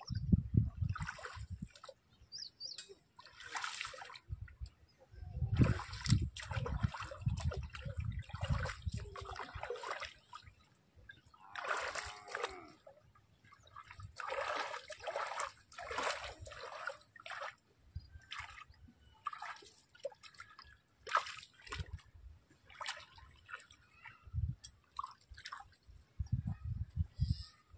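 Water splashing and sloshing in irregular bursts, with a few low thuds mixed in.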